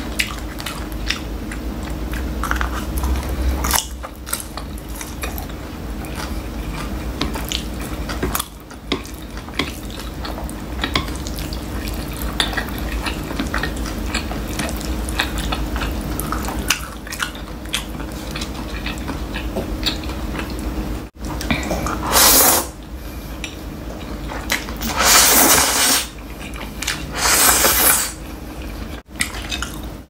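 Eating sounds of black bean noodles: chopsticks clicking against a glass plate, with three loud wet slurps of noodles in the last ten seconds.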